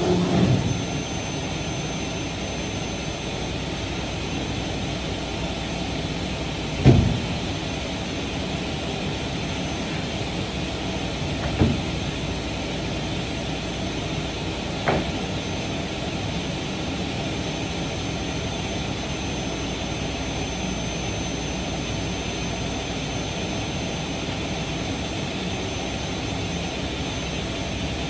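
Steady drone of woodworking shop machinery and dust collection, with a thin high whine held over it. Three short knocks sound through it, the loudest about seven seconds in, from board panels being handled.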